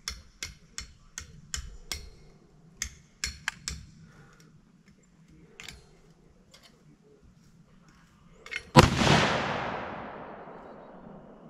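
A single shot from a Browning BAR semi-automatic rifle in .308 Winchester about nine seconds in, very loud and sudden, its sound trailing off slowly over two or three seconds. Before it, about a dozen quick sharp clicks in the first four seconds.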